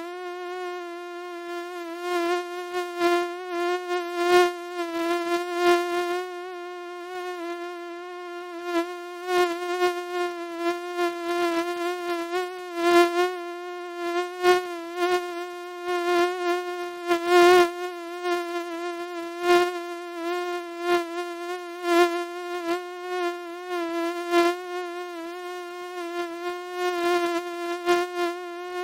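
Mosquito whine: a steady, high, buzzing tone that wavers only slightly in pitch, with frequent short clicks scattered through it.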